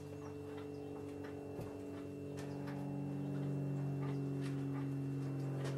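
A steady low hum that grows louder about halfway, with faint, scattered clicks and scrapes of a trimming tool on a pot turning on a potter's wheel.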